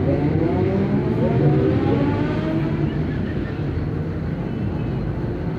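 Mercedes-Benz OF 1519 bus diesel engine pulling away, its pitch rising through the first two and a half seconds and then holding steadier.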